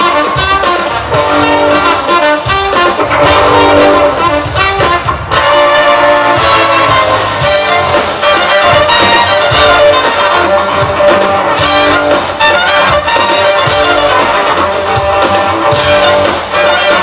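Live funk band playing an instrumental passage: brass horns and saxophone lead over electric guitars, bass and drum kit.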